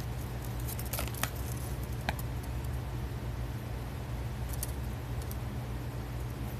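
Folded paper collector's leaflet being unfolded and handled, giving a few light crinkles and clicks over a steady low hum.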